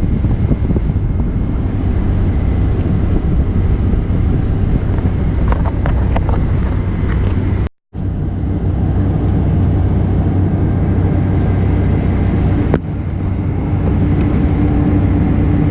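Steady cabin drone of a Boeing 747-400 idling on the taxiway, a low rumble with faint high whines over it. The sound cuts out for a split second about eight seconds in.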